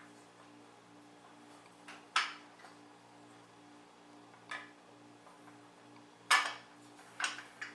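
Steel tube parts of a portable hunting chair clanking together as they are handled and fitted. Four separate knocks, the loudest a little after six seconds in, over a steady low hum.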